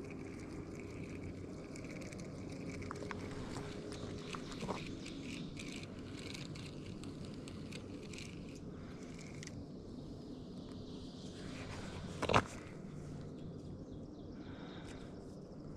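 Fishing tackle being handled on a spinning rod and reel: small scattered clicks over a steady outdoor hiss, with one sharp knock about twelve seconds in.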